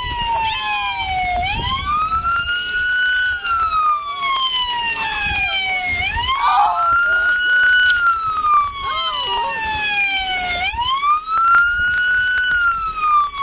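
Police car siren on a slow wail, its pitch climbing for about two seconds and falling for about three, one full cycle roughly every four and a half seconds.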